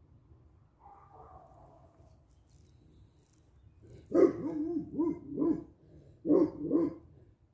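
Dog barking: a quick run of about four barks starting some four seconds in, then two more near the end.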